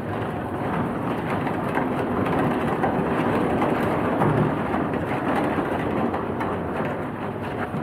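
Steady rumbling and rattling as a Lely Astronaut milking robot is pushed and shifted into place, with a machine's engine running.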